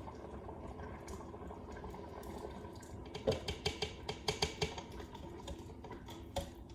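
Soup bubbling at a boil in an Instant Pot on sauté: a steady bubbling hiss, then from about three seconds in a quick run of sharp pops and clicks.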